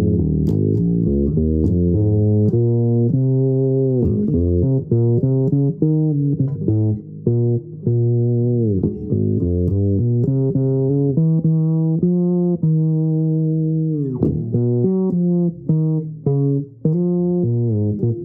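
Fretless electric bass played solo with the fingers: a continuous melodic line of plucked notes, with several notes sliding in pitch.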